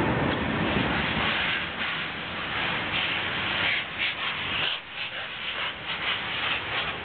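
A steam-hauled train, with a Class 37 diesel locomotive at its tail, moving away. Its rumble fades over the first two seconds or so, leaving a rushing hiss that comes and goes in gusts, with wind on the microphone.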